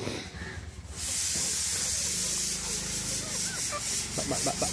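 A steady hiss that starts suddenly about a second in, with chickens clucking faintly near the end.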